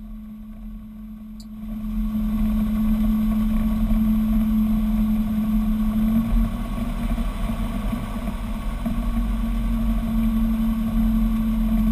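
Robin DR400 light aircraft's piston engine and propeller running steadily at low taxi power, heard from inside the cockpit, growing louder about two seconds in.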